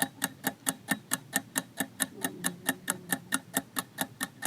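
Quiz countdown clock ticking steadily, about four sharp ticks a second, as the time to answer runs down.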